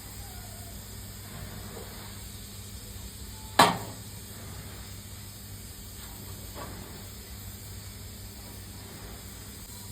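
One loud, sharp knock on metal a little over a third of the way in, with a short ring after it, and a fainter knock later, over a steady low hum and hiss.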